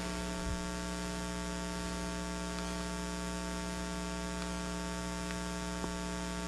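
Steady electrical mains hum with a stack of overtones, with a few faint ticks.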